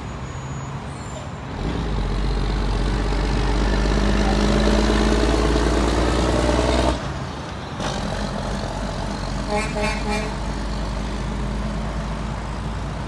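Road traffic passing: a heavy vehicle's engine rumbles and grows louder, then drops off abruptly about seven seconds in. Around ten seconds in a vehicle horn gives a few short toots over the ongoing traffic noise.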